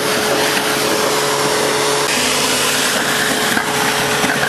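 DuroVac DVP-series 25-horsepower electric industrial vacuum running, air rushing loudly into a 3-inch suction nozzle held at the water surface as it draws up water and golf balls. A steady whine sits under the rush of air.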